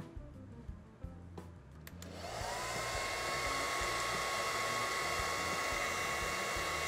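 Hand-held hair dryer switched on about two seconds in, its whine rising and then holding steady over a constant rush of blown air as it dries fabric paint.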